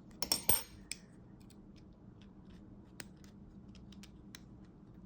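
Small metal parts of a Leatherman Arc multitool and a scalpel-blade adapter bit clicking and scraping as they are fitted together: a cluster of clicks in the first second, then scattered light ticks.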